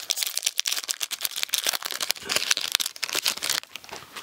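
Shiny plastic wrapper of an Upper Deck MVP hockey card pack being torn open and crinkled by hand: a dense run of crackles that stops about three and a half seconds in.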